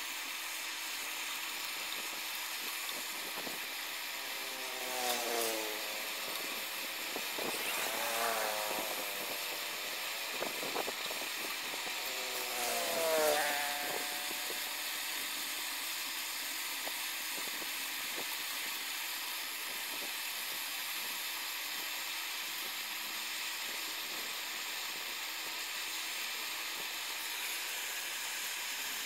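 Handheld butane gas blowtorch burning with a steady hiss. Three brief pitched sounds that glide in pitch rise over it, about five, eight and thirteen seconds in.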